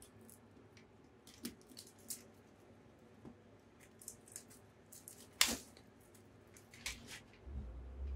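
Scattered crackles and clicks of old insulating tape and plastic sleeving being pulled off a Triumph TR7 wiring loom by hand, with one louder snap about five and a half seconds in.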